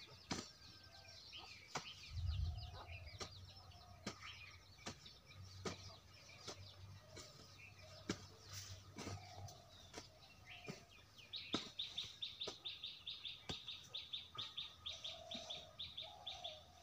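Birds chirping and calling, with a fast even run of high chirps, about seven a second, through the second half. Scattered dull knocks of a hand hoe chopping into dry soil.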